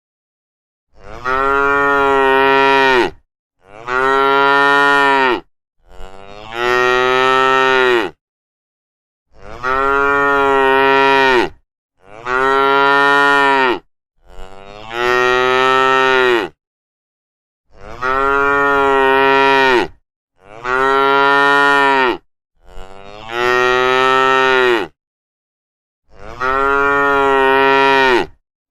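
Cattle mooing: about ten moos in a row, each about two seconds long, with a clear, fairly high pitch and full silence between them.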